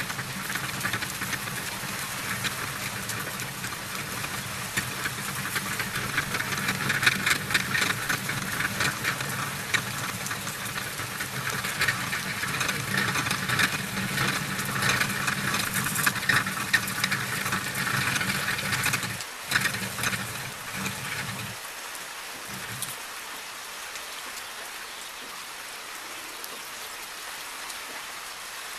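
Spinning fishing reel being cranked to wind on line from a line-winder spool: a steady, fast whirring rattle of the reel's gearing. It stops about three quarters of the way in, leaving a fainter hiss.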